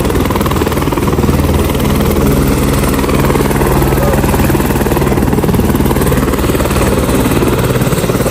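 Light helicopter running on the ground at close range, its main rotor turning with a loud, steady, rapid beat of the blades.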